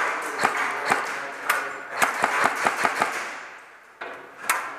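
Airsoft guns firing single shots in a hard-walled, echoing indoor space: scattered sharp cracks, a quick run of about six between two and three seconds in, then one more near the end.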